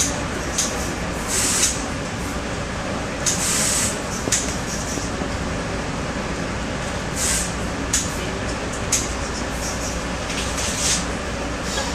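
Moving NJ Transit commuter train heard from inside the passenger car: a steady rumble of wheels on the rails, with short bursts of hiss every second or two.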